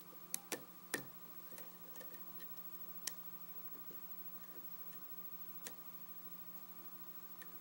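Hook pick and tension wrench working the pins inside a 5-pin Schlage lock cylinder during single-pin picking: scattered small sharp clicks, three within the first second, then single ones about three and about six seconds in, over a faint steady hum.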